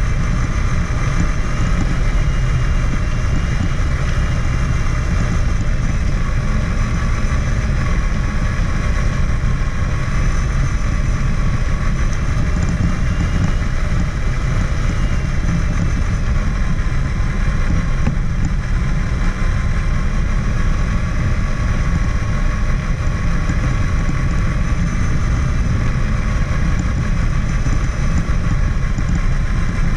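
Traxxas Summit RC truck's electric motor and geartrain whining as it drives, the whine drifting up and down in pitch with speed, over a steady heavy low rumble from the chassis shaking the onboard camera.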